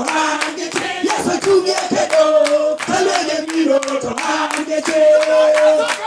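A group of voices singing together, accompanied by steady hand clapping at about three claps a second.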